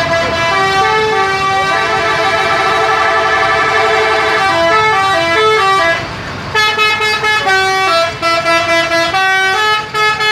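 Telolet multi-tone horns on Haryanto buses playing melodies of held notes that step from pitch to pitch, with several tones sounding together. About six seconds in there is a short break, and then the notes come quicker and choppier.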